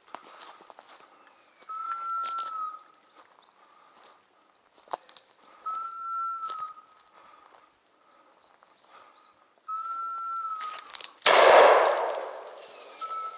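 A hunting dog's electronic beeper collar sounds one steady beep about every four seconds, with footsteps snapping twigs on the forest floor. About eleven seconds in, a single loud shotgun shot goes off and echoes away through the woods.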